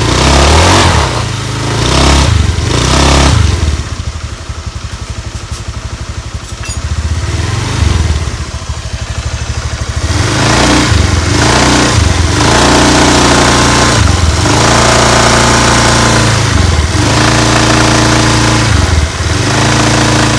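Honda Beat FI scooter's small single-cylinder engine revved in short bursts, dropping back to a quieter pulsing idle, then held at a steady higher speed from about halfway on.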